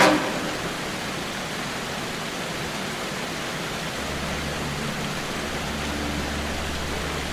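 Steady rushing of a cave waterfall, an even wash of water noise, with a brief loud burst right at the start. A low steady hum comes in about halfway through.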